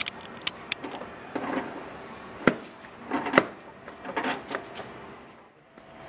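Clicks, knocks and rattles of a tool and the plastic door latch assembly being worked loose and pulled out inside a car door's steel shell: a quick run of sharp clicks at first, a few louder knocks in the middle, and a brief rattle after.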